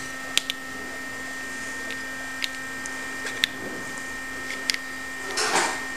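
Light metal clicks and clinks of Triumph Spitfire rocker-shaft parts (rocker arms, spacers, pedestal stand) being handled and fitted onto the rocker shaft. There are about six scattered clicks over a steady background hum, with a brief rustle near the end.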